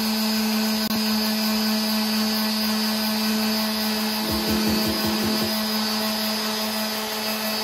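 Electric orbital sander running steadily against a wooden bench frame, a constant motor hum under the hiss of the sanding disc on the wood, sanding smooth the filled staple holes.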